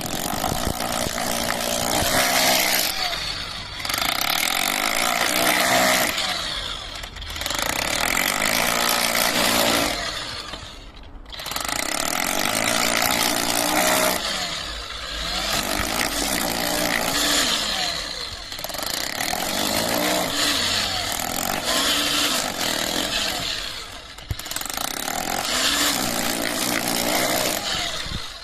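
Brushless cordless rotary hammer (MK-POWER MK-IS-2) hammering into concrete in repeated runs of a few seconds each, with short pauses between them as the trigger is released and pressed again.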